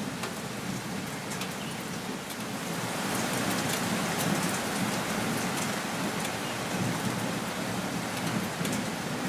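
Steady rain falling on trees and nearby surfaces, a dense hiss with separate drops ticking close by. It grows heavier about three seconds in.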